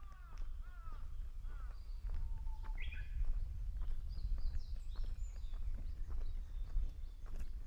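A Japanese bush warbler (uguisu) sings its song once, about two to three seconds in: a held whistle followed by a quick, higher flourish. Other birds call around it, with a few descending calls near the start and high chirps afterwards, over a steady low rumble.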